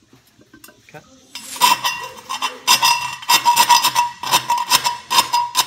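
A hand tool scraping rapidly around the freshly cut hole in a 3-inch steel exhaust pipe, cleaning up the cut edge; the pipe rings at a steady pitch under the strokes. The scraping starts about a second and a half in.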